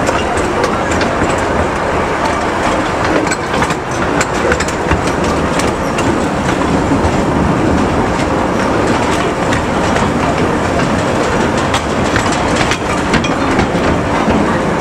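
Miniature railway train running on 20-inch gauge track, heard from an open-sided carriage: a steady rumble of wheels on rail with irregular sharp clicks from the rail joints.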